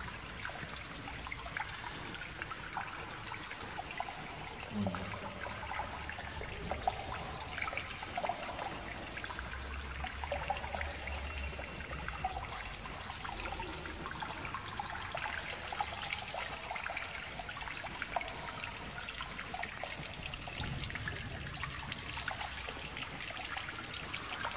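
Water trickling steadily in the small spring of a replica Lourdes grotto.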